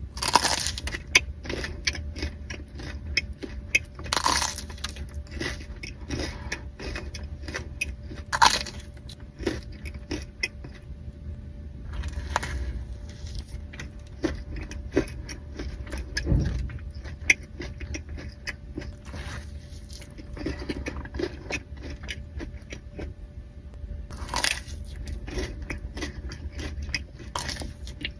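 Close-miked eating of donuts: biting and chewing with lots of sharp, crackly clicks and a few louder crunchy bursts.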